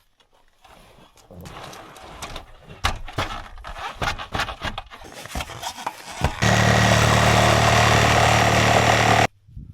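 Scattered knocks and scrapes against old wood roofing, then a battery-powered saw runs at a steady pitch for about three seconds, cutting into the roof, and stops suddenly.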